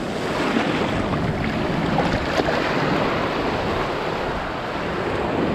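Shallow surf washing in over the sand, a steady rush of breaking waves close by, with wind buffeting the microphone.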